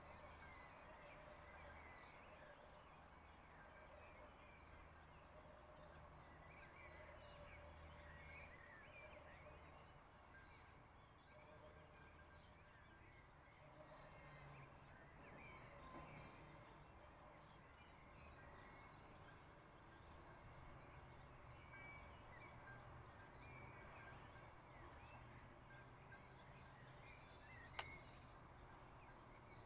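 Faint distant birdsong: many small birds chirping, with a short high call repeating every few seconds, over a low steady hum. A single sharp click near the end.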